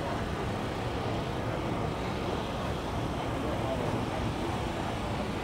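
Steady outdoor background noise with faint talk from people walking around nearby.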